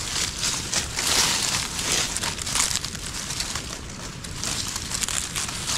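Dry fallen leaves rustling and crackling as hands brush and pick through the leaf litter, in irregular crackles with no steady rhythm.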